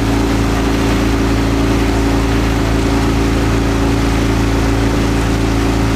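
The engine of a motor launch running steadily at constant speed, an even hum with no change in pitch, with a hiss of water and wind over it.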